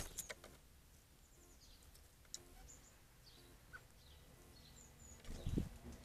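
Small bird's wings fluttering in a quick run of strokes as a blue tit lands at the bird bath. Faint, short, high bird calls follow here and there, and a brief low buffeting sound comes close to the microphone near the end.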